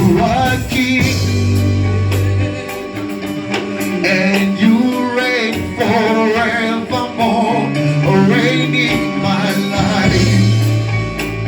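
Gospel worship song: singing over a live band, with held bass notes and a steady beat.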